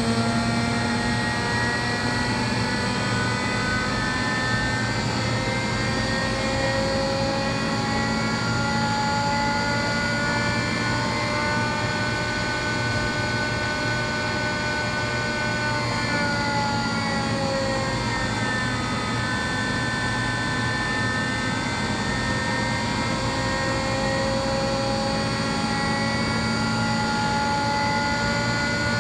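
Screw air compressor running: a steady mechanical drone with several whining tones that drift slowly in pitch, dipping and then recovering about two-thirds of the way through.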